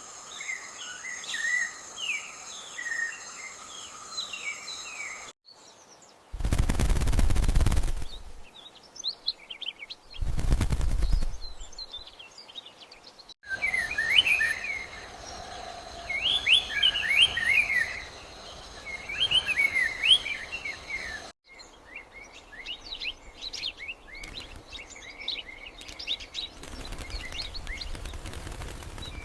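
Small birds chirping and singing in quick, varied phrases. In some stretches a steady high insect buzz sits under the birds. Two loud bursts of rushing noise drown them out, about six and ten seconds in.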